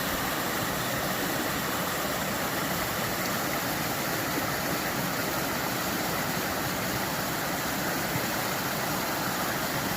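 Creek water rushing and cascading over rocks, a steady unbroken noise.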